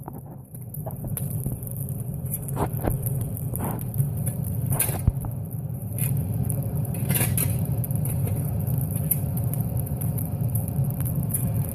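Steady low rumble from a smelting furnace, with scattered sharp clinks and crackles over it as the slag runs out.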